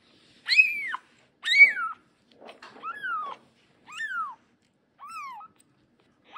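Ten-day-old kitten mewing: a series of short, high-pitched cries about one a second, each rising then falling in pitch, the first two loudest, while it is held for syringe feeding.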